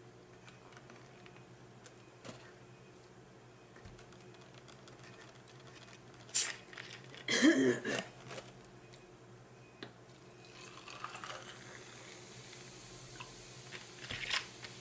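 A carbonated drink: a sharp click about six seconds in, a short loud rush of liquid, then a steady high fizzing of the bubbles through the last few seconds, the sign that the drink is not flat.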